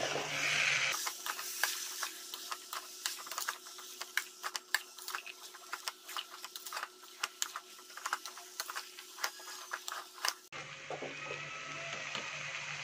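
A metal spoon stirring cooked black chickpeas and sweet corn in a steel pan, clinking and scraping against the pan in irregular, rapid clicks. A soft sizzle is heard in the first second and again near the end.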